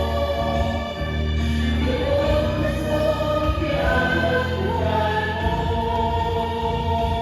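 Background music: slow choral singing with held notes that change every second or two, in a gospel or hymn-like style.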